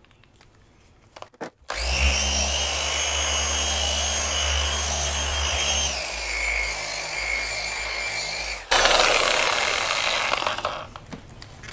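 Porter Cable dual-action polisher running on a car panel with a finishing foam pad, a steady motor whine over a low hum that starts about two seconds in and drops to a lower speed about six seconds in. Near the end it gives way to a louder rushing noise for about two seconds.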